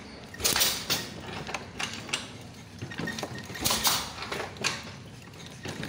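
Honda Activa 110 scooter's engine being kick-started a few times, giving uneven bursts of mechanical cranking clatter without firing. The engine has a no-start problem, and the kicks are drawing petrol through the disconnected fuel hose to check fuel flow.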